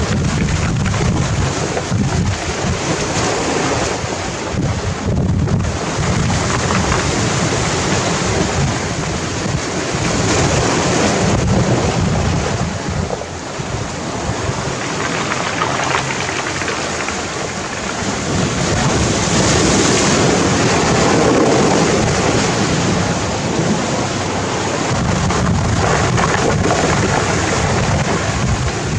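Sea waves breaking and washing over a pebble beach: a continuous surf that rises and falls as breakers come in, loudest about twenty seconds in.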